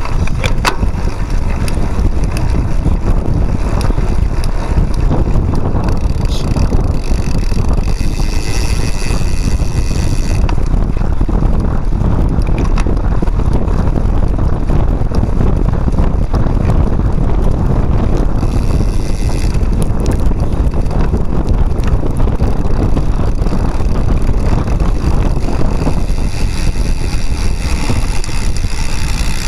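Cyclocross bike riding fast over a dirt and leaf-covered woodland trail: steady low rumble of wind buffeting the microphone, with tyre noise and many small rattles and clicks from the bike.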